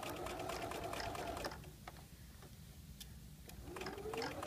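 Domestic sewing machine stitching a seam with a fast, even ticking, stopping about one and a half seconds in. A couple of faint clicks sound in the pause, then a rising whine near the end as the motor starts up again.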